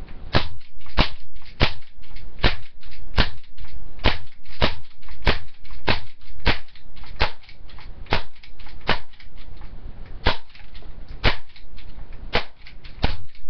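CO2-powered HK USP airsoft pistol firing a magazine of BBs in a string of single sharp shots, roughly one every half second to a second.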